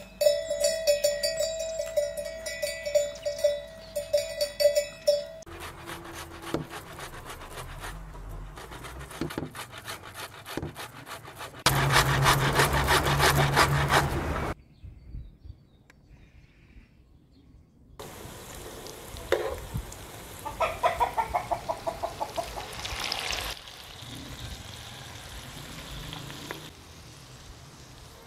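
A cowbell clanking with a ringing tone for about five seconds. It is followed by a changing mix of other outdoor noises: a loud stretch of noise with a low hum, a few seconds of near silence, then softer noises with a quick run of ticks.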